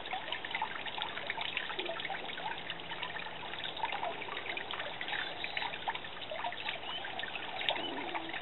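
Water trickling and dripping steadily down a five-foot stone tree water fountain of Idaho gold mica slate, with many small drips splashing among the running water.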